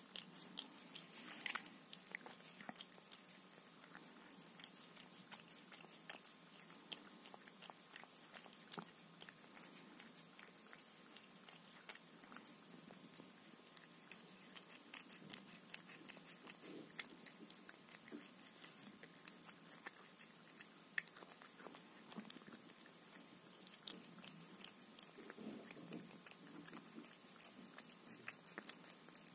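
A cat eating wet pâté from a foil tray: faint, irregular wet clicks of licking and chewing.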